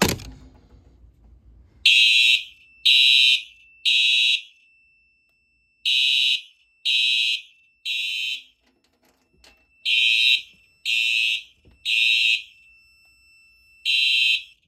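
Simplex fire alarm horn strobes sounding temporal code 3: three half-second horn blasts a second apart, then a pause, repeated three times, with a lone blast near the end. A sharp snap at the very start is the homemade pull station being pulled to set off the alarm.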